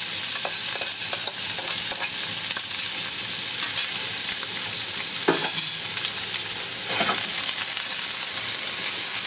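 Diced bacon frying in hot butter with garlic and chilli peppers in a stainless steel pan: a steady sizzle with fine crackling. The bacon cubes have just gone into the hot fat.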